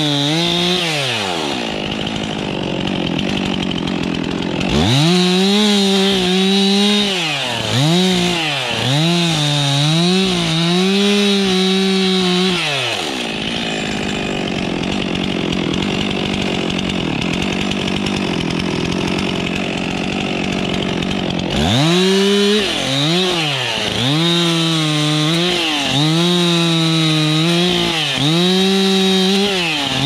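Stihl MS 362 two-stroke chainsaw with a 45 cm bar, revved in repeated bursts with the engine note dipping and rising between them while cutting spruce branches and a trunk. Twice, briefly near the start and for several seconds in the middle, the engine note gives way to the even noise of the chain cutting through wood.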